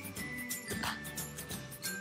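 Background music with a steady beat, about three strokes every two seconds, over a bass line and a high held melody.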